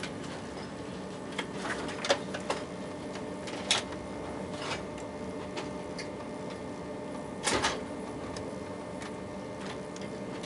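Inside a TGV high-speed train carriage pulling slowly away from a station: a steady low rumble and hum, broken by a few sharp clicks and knocks and a longer clatter about seven and a half seconds in.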